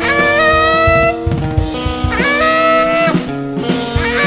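Live jazz trio of tenor saxophone, baritone guitar and drum kit. The tenor saxophone plays two long held notes, each scooping up into pitch, the second about two seconds in, over sustained guitar chords and busy drumming.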